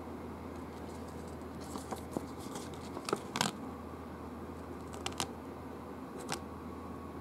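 Paper pages of a rules booklet being turned and handled: a cluster of short rustles and flicks, loudest about three and a half seconds in, then a few single flicks near the end, over a steady low hum.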